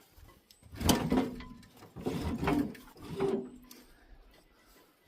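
Metal parts of a sawmill scraping and clunking in three short bursts as they are shifted and forced by hand.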